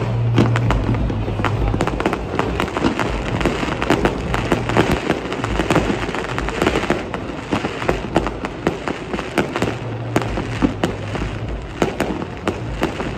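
Fireworks display: many sharp cracks and pops in quick succession over a continuous rumble and crackle as shells and comets are fired and burst.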